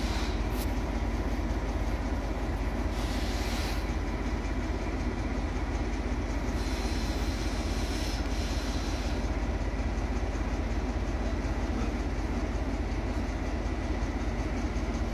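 Class 14 diesel-hydraulic locomotive D9525 running close by, its Paxman V6 diesel engine giving a steady low throb, with two short hisses about three and seven seconds in.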